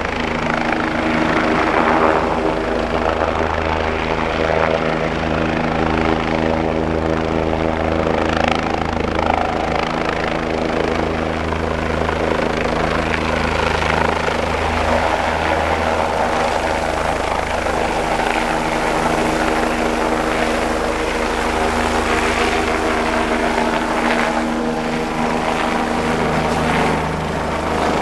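Bell 427 twin-turboshaft helicopter running at close range, its rotor beating and turbines running steadily as it hovers at the helipad, then lifting off about halfway through. A thin, high turbine whine sits above the rotor noise and grows stronger from the liftoff on.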